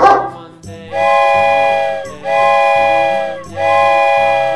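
Three long toots of a cartoon steam-train whistle, each about a second long with short gaps between, as the toy train moves on. The last of a dog's bark is heard at the very start.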